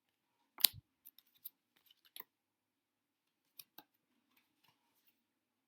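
Sparse handling noises: a sharp knock about half a second in, then a few light clicks and taps.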